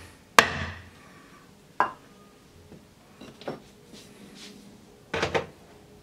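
Hammer blows on metal with ringing clinks: a loud strike just after the start, another about a second and a half later, lighter taps in the middle and a quick double knock near the end. The hammer is striking a steel shelf-pin fitting punched into a pine board, knocking it loose so it can be wrenched out.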